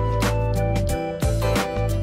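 Background music with a steady beat over held notes and a deep bass tone.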